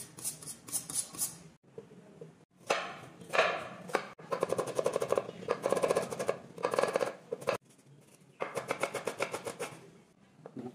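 A kitchen knife drawn several times along a sharpening steel with quick metal scrapes. Then a chef's knife slices and dices red onion on a bamboo cutting board, in long runs of rapid chops on the wood with short pauses between.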